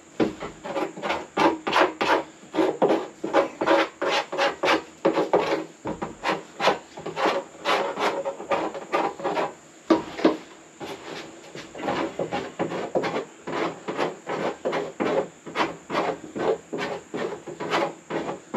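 Knife blade scraping the shavings off the rim of a freshly drilled 3.5-inch hole in a plastic barrel: quick repeated strokes, about three a second, with a couple of short pauses. This is the hole being deburred by hand.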